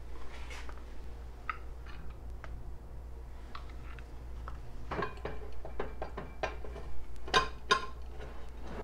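A spoon stirring shredded cheese into cooked ground beef, knocking and scraping against the dish. The clicks are sparse at first, then come thick and louder in the last few seconds.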